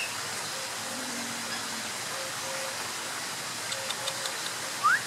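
Steady rushing of falling water, with a few faint high ticks and a short rising whistle near the end.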